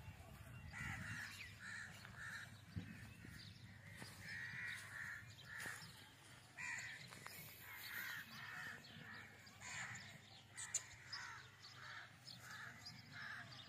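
Faint crows cawing, a long string of short caws at roughly two a second with brief pauses.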